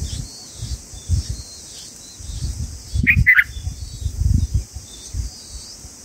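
Two short, sharp chirps from the bulbuls at the nest about three seconds in, over a steady high hiss of insects and low rumbles that come and go in gusts.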